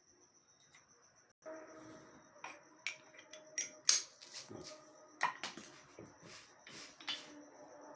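Irregular sharp clicks and knocks, about nine of them, the loudest about four seconds in, over a steady high-pitched cricket trill. A low background hum starts about a second and a half in.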